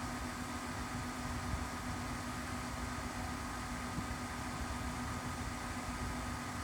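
Celcia WAP-02EA20 portable air conditioner running steadily: a constant hum with a fixed higher tone over the rush of its fan.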